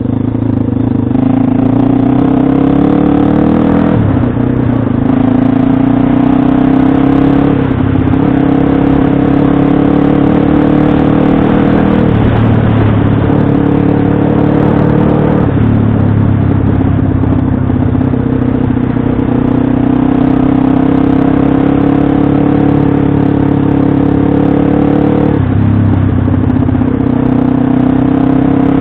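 Pit bike engine running hard under throttle, its pitch climbing gently and then dropping sharply several times before picking up again.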